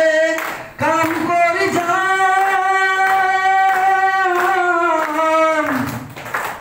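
A man singing into a hand-held microphone, a slow melody with long drawn-out notes, one held steady for over two seconds in the middle.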